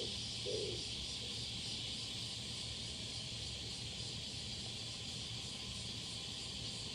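A male oriental turtle dove gives one low coo about half a second in, the last note of its song phrase. After it comes only a steady, high insect drone.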